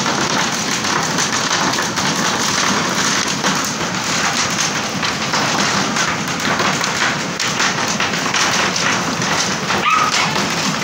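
Heavy hail falling, countless small stones striking the ground and roofs and merging into a loud, steady hiss of impacts. A short high-pitched squeak comes through about ten seconds in.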